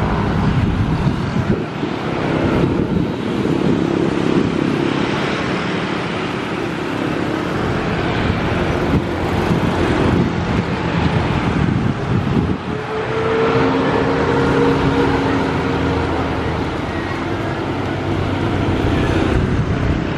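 Road traffic passing close by, a steady mixed noise of vehicle engines and tyres, with one vehicle's engine humming on a steady note from about twelve to sixteen seconds in.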